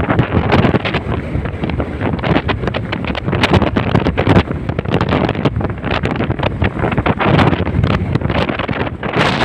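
Strong gusty wind buffeting the microphone in irregular blasts: the squall that comes ahead of a rainstorm.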